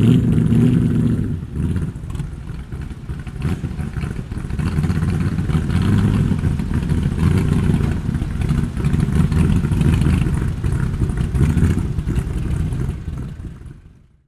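Vintage car engine running, its level rising and falling, then fading out near the end.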